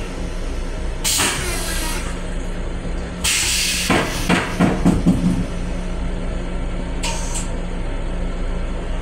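Steady low hum of an M7 commuter railcar heard inside its small restroom, broken by several short bursts of hissing. About four seconds in comes a spell of uneven knocks and rattles.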